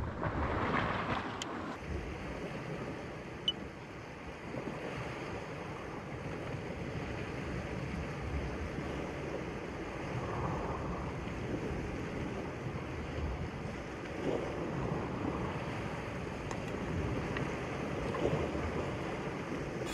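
Sea surf washing against shore rocks, a steady rushing noise with some wind on the microphone, and a sharp click about three and a half seconds in.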